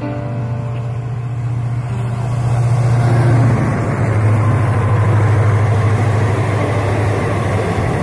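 A diesel-hauled express train passing at speed. The locomotive's low engine hum drops slightly in pitch as it goes by, while the rushing noise of the coaches on the rails swells and then holds.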